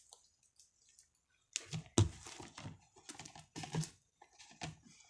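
Homemade slime being squeezed and kneaded in the hands, making an irregular run of sticky clicks and pops. It starts about a second and a half in and is loudest about two seconds in.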